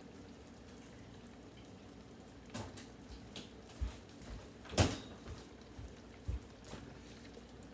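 A few short knocks and clicks of kitchen things being handled, starting after about two and a half seconds, the loudest about five seconds in.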